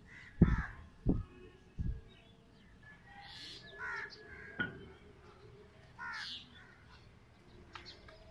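A few short low thumps in the first two seconds, then crows cawing, several separate calls spaced a second or more apart.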